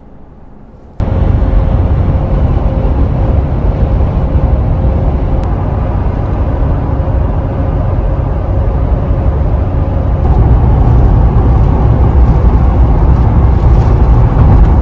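Steady road and wind noise of a 2020 Toyota 4Runner driving at speed. It starts abruptly about a second in and grows a little louder after about ten seconds.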